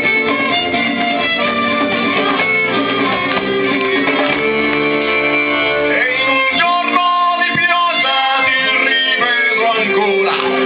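A band playing music live.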